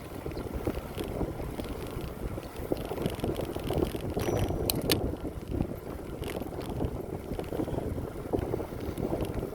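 Wind rushing over the microphone and the rolling noise of a bicycle riding along a bike path, with a couple of sharp clicks about halfway through.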